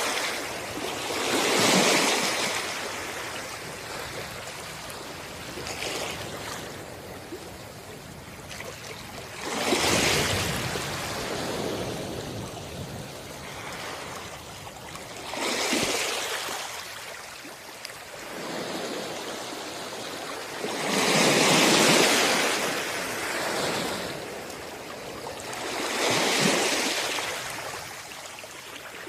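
Small sea waves washing onto a beach, each one swelling up in a rush of surf and then fading, about one every five or six seconds.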